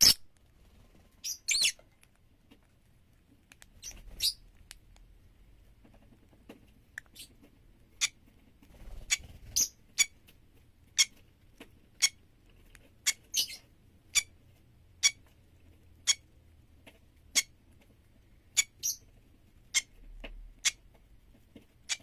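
Fischer's lovebird giving short, sharp, high squeaky chirps, roughly one a second, some coming in quick pairs.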